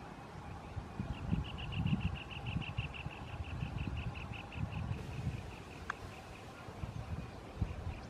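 A rapid, even trill of high notes, about six a second, starts about a second in and fades near the end. Under it runs a low, uneven wind rumble on the microphone, with one sharp click a little before the end.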